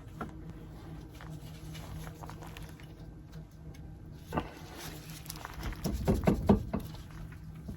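Greasy wheel bearing and hub being worked by hand: scattered light metal clicks and scrapes, growing into a quicker run of louder clicks and knocks in the last couple of seconds, over a steady low hum.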